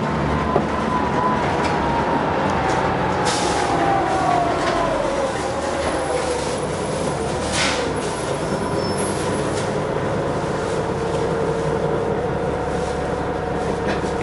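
Interior running noise of a 1997 Neoplan AN440 CNG transit bus heard from the passenger cabin: a steady rumble with a whine that falls in pitch over several seconds and then holds steady. There is a short hiss about halfway through.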